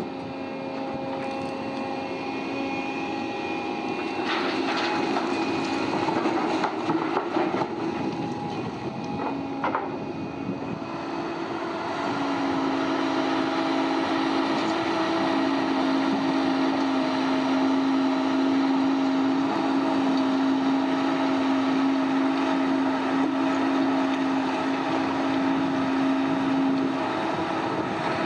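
Heavy machinery running with a steady hum, with a few sharp clatters about four to ten seconds in. The machinery gets louder about twelve seconds in.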